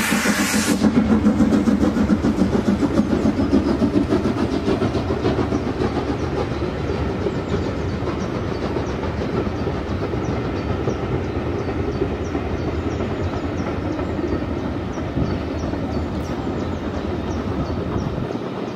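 Carriages of a steam-hauled passenger train rolling across a brick viaduct, the wheels beating rhythmically over the rail joints and slowly fading as the last coaches pass. A hiss from the locomotive stops under a second in.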